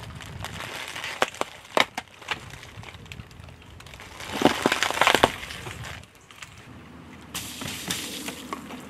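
A car tyre rolling slowly over a cardboard box of Oreo cookies, the box and biscuits crackling and crunching, loudest about four to five seconds in. Near the end the tyre crushes a second item that squirts out liquid, with a hissing spray and a few crackles.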